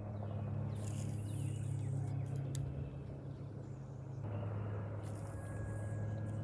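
A steady low motor hum with a few faint clicks and light rustling over it.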